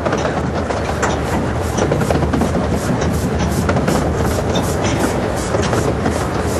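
A 15-inch gauge miniature railway train running along the line, heard from an open carriage: a steady rattle of wheels on track with a regular clicking beat about three times a second.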